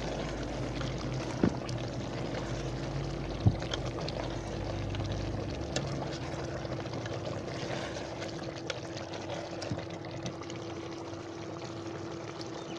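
Chicken curry in a steel pot being mixed and simmering: a steady wet bubbling and sloshing, with a couple of sharp knocks of the spoon against the pot near the start.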